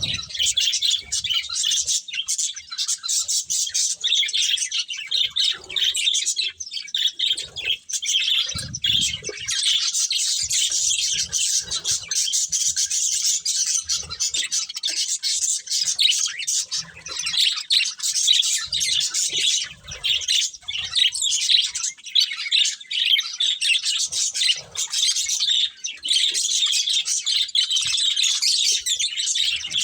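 Several budgerigars chirping and chattering continuously, a dense run of short, high notes.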